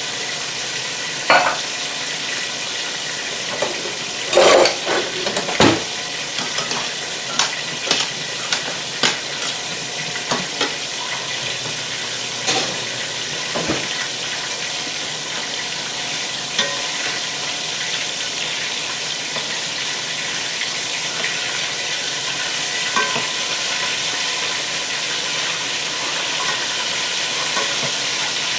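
Cornstarch-coated chicken wings frying in hot oil: a steady sizzling hiss, with a scatter of sharp clicks and knocks in the first half.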